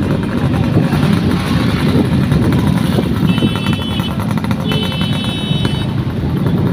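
Motorcycle engine running with a steady low rumble while riding slowly, other motorbikes passing close by. Two short high-pitched tones are heard about three and five seconds in.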